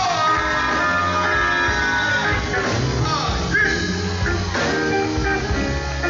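Live gospel band playing: electric guitar with sliding, bent notes over bass guitar, drums and keyboard.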